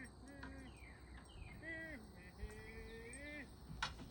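A man singing in long, wavering held notes without clear words, over a steady high insect buzz. A single sharp click comes near the end.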